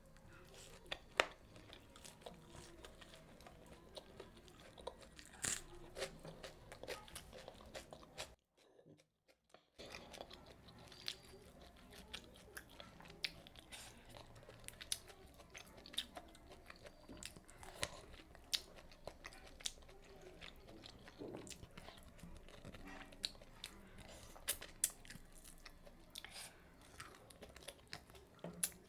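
Close-miked eating: a person chewing and taking crunchy bites of crisp fried puri with curry, with many sharp snaps and mouth clicks. The sound drops out completely for about a second around eight and a half seconds in.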